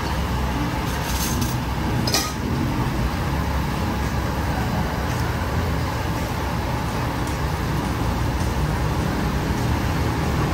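Steady road traffic rumble from the street beside the stall, with one short clatter, such as a dish or utensil knocking, about two seconds in.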